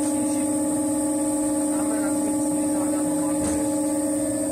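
Electric potter's wheel motor running with a steady, even hum and a high whine, with a faint knock about three and a half seconds in.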